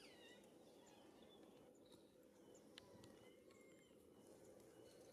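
Near silence: faint steady low background noise with a few faint, short high chirps and squeaks, including a falling squeak right at the start.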